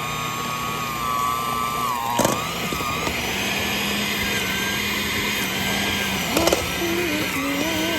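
Electric mixer running steadily as its beaters shred cooked chicken thighs in a bowl, with a couple of sharp knocks.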